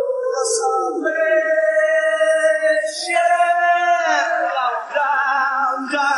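Isolated male vocals singing wordless, layered held notes, which turn into a wavering, warbling line about four seconds in.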